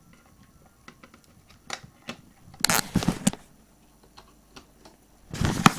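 Handling noise as small hardware is handled and connected: scattered clicks and taps, with two louder rustling, clattering bursts, one about halfway through and one near the end.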